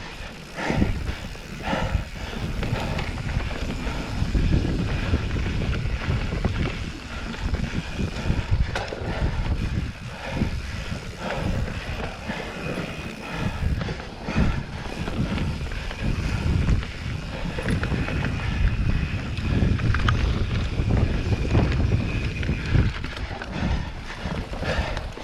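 Mountain bike riding over a dirt trail: wind rumbling on the microphone, with frequent knocks and rattles from the bike over rough ground.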